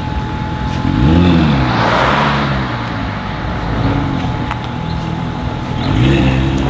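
Porsche 911 GT3 RS's naturally aspirated flat-six engine revved twice while the car rolls slowly. A quick rev rises and falls about a second in and another comes near the end, with a steady low rumble between.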